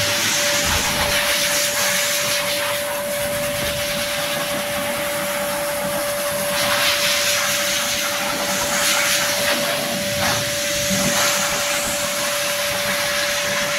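High-velocity pet grooming dryer blowing air through its corrugated hose onto a wet cat's fur: a continuous rushing hiss over a steady motor whine, the air noise getting stronger from about halfway through as the nozzle is moved.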